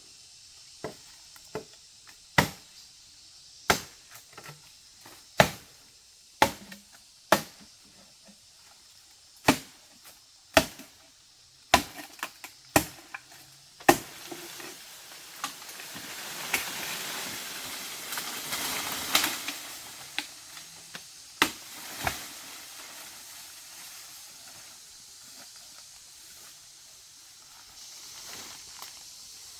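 Repeated sharp chopping strikes, about a dozen at irregular intervals of roughly one a second, like a blade cutting into wood or plant stems. The strikes are followed by several seconds of rustling and two more strikes.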